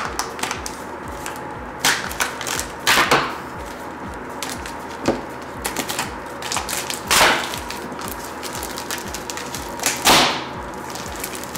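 Plastic shrink wrap on a smartphone box crinkling and rustling as hands handle it and peel it off. The crinkles are irregular, with sharper bursts about two, three, seven and ten seconds in.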